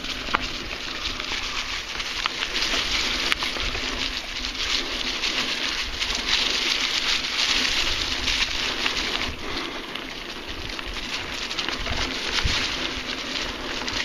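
Mountain bike tyres rolling over dry fallen leaves on a dirt singletrack: a steady crackling rustle dotted with small clicks and rattles.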